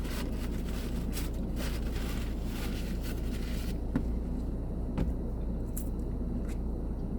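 Steady low hum of a car cabin, with paper rustling for the first half and a few light clicks after.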